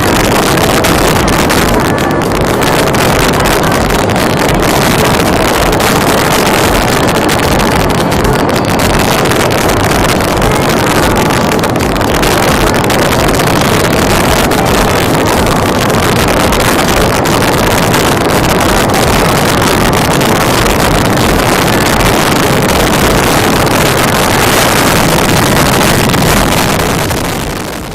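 Loud wind buffeting the microphone of a moving vehicle, a steady rushing roar with a low, irregular flutter over the road and vehicle noise beneath. It fades out near the end.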